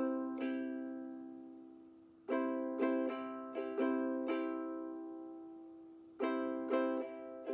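A ukulele strumming a C chord in the down, down, up, up, down, up pattern. One full group of six strums starts about two seconds in and another about six seconds in, and the last strum of each group is left to ring and fade.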